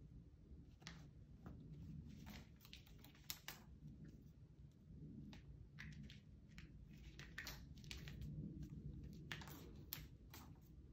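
Faint, irregular clicks and scratches of a kitten playing with a butterfly-on-a-wire toy, pawing and pouncing on it over a tile floor and rug.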